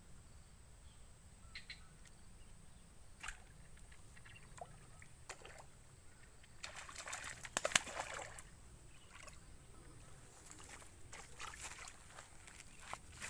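Water splashing and sloshing in a few short irregular bursts, the loudest about eight seconds in, with scattered light clicks and knocks in between.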